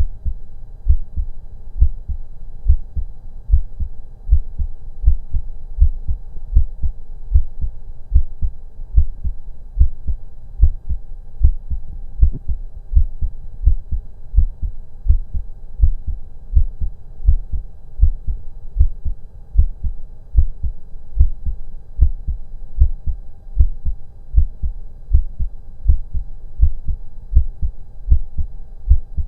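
Human heartbeat heard through a stethoscope: a steady rhythm of low thuds, about one beat a second, over a faint steady hum.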